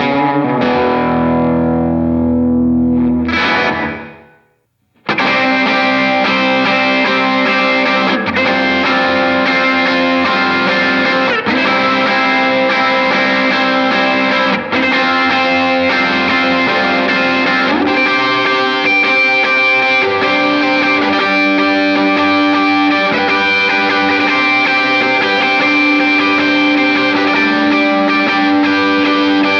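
Electric guitar demo through the JET Revelation pedal's spring reverb, modelled on a tube-driven spring tank. A phrase rings out and fades away about four seconds in. After a short silence a second passage of sustained chords and notes starts and plays on.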